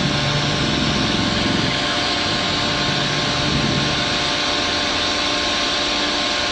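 Diesel engine of heavy machinery running steadily with an even, unbroken drone.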